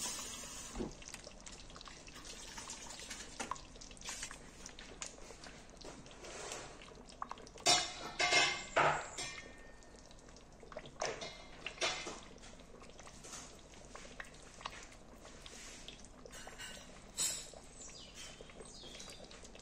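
Pot of thick fumbwa stew simmering, bubbles bursting on the surface with irregular wet pops, a cluster of louder pops near the middle.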